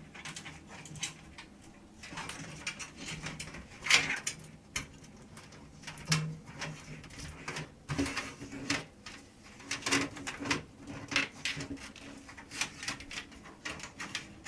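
Irregular clicks, taps and knocks of front-panel cables being pushed and routed through a PC case, with a louder knock about four seconds in.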